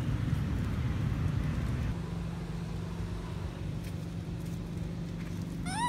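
Low background rumble that drops in level about two seconds in and goes on as a quieter hum. Right at the end comes a short squeal from a young long-tailed macaque, rising and then falling in pitch.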